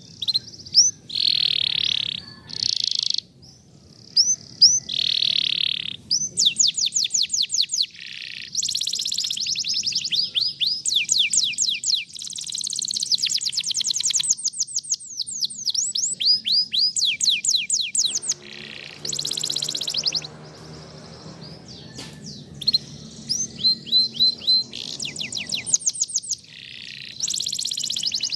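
Domestic canary singing: phrase after phrase of fast, repeated downward-sweeping notes and rolling trills, with short pauses between phrases.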